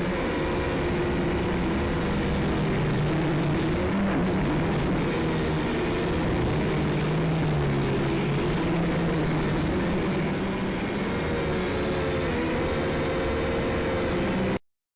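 Syma X5SC quadcopter's small motors and propellers whirring steadily, the pitch wavering a little with throttle. The sound cuts off abruptly near the end.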